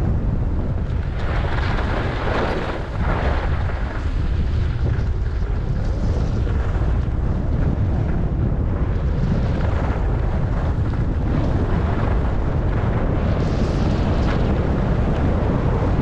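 Wind buffeting the microphone of a camera carried by a skier moving downhill, a steady low buffeting, with skis hissing and scraping over groomed snow that grows louder about two seconds in and again near the end.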